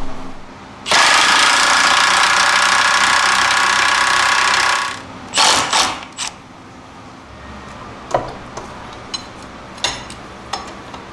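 Milwaukee M12 cordless impact wrench hammering in a run of about four seconds, then two short bursts, driving the coil spring compressor's screw up from below to compress the front coil spring. A few light metallic clicks follow near the end.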